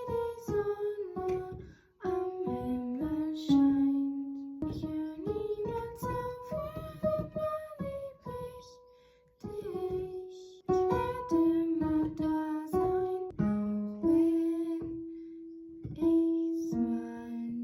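Acoustic guitar picking a slow melody over chords, note by note, with a few notes left ringing.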